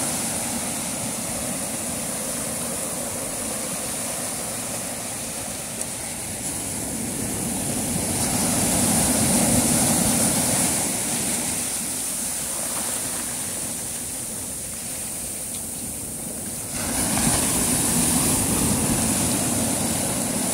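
Steady sea-and-wind noise at the shore, an even rush that swells for a few seconds before the middle and jumps suddenly louder near the end.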